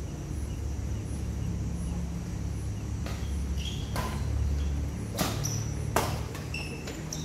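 Badminton rackets striking a shuttlecock in a rally: sharp clacks about once a second from about three seconds in, with a few short high squeaks, over a steady low rumble.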